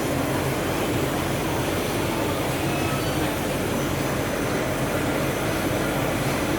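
Chocolate-production machinery running with a steady mechanical hum.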